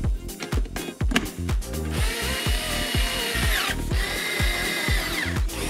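Cordless electric screwdriver driving screws: the motor whines in two runs, from about two seconds in, each winding down with a falling whine as it stops. Background music with a steady beat plays throughout.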